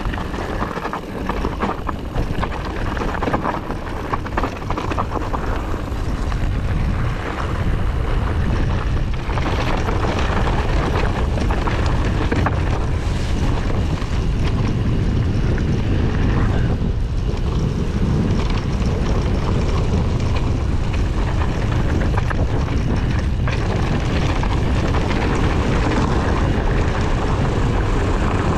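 Wind rushing over an action camera's microphone and mountain bike tyres rolling over grass and dirt on a downhill run, a dense rumbling noise. It is choppier at first and steadier and louder from about six seconds in.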